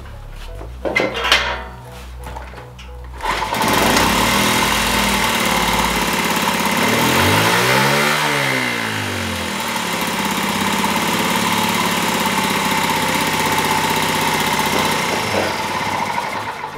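Honda Gorilla's small single-cylinder four-stroke engine started, catching first time about three seconds in and then running loudly. Around the middle its revs rise and fall back once. The carburettor's main jet is not properly seated.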